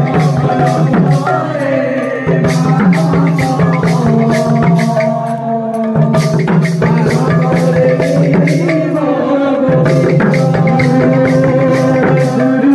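Odia Udanda kirtan music: hand-played double-headed barrel drums (mridanga/khol) beating a fast rhythm, with rattling cymbals and group singing over a steady low tone.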